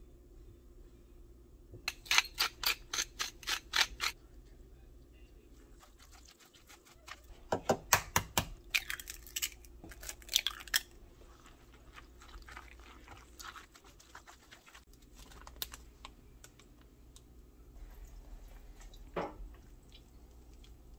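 Quick runs of sharp clicks and knocks from kitchen utensils, in three bursts of a second or two each, then a single softer knock near the end.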